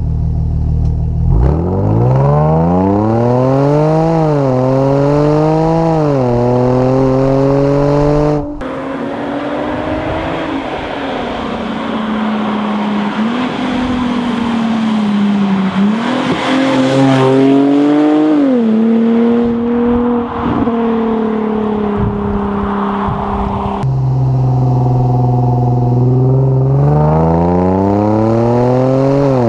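Range Rover Velar P380's supercharged 3.0-litre V6 through a QuickSilver sports exhaust, accelerating hard with the pitch climbing and dropping at two quick upshifts. It is then heard from the roadside rising and falling as the car drives up and past, and near the end again up close at the tail, climbing under acceleration.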